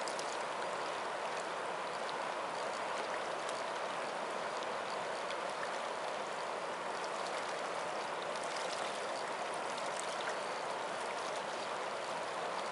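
Steady rushing of a fast-flowing river current, running at about 8 miles an hour.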